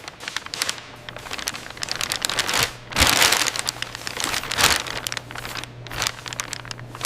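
Crinkling, crackling handling noise with scattered clicks and two louder rustling bursts, one about three seconds in and one past the middle, over a faint steady machine hum.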